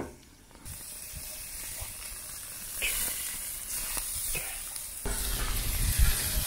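Burger patties sizzling on a portable gas grill: a steady hiss, broken by cuts into a few short stretches, louder near the end with a low rumble underneath.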